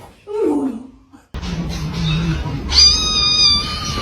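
A domestic cat meows once, its pitch falling. After a cut, a high, steady squeal holds for more than a second near the end.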